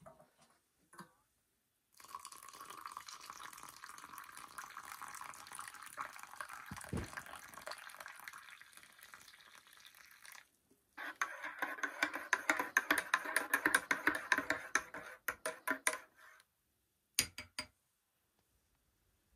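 Liquid being poured into a container in two long pours, the second louder, ending in a few drips.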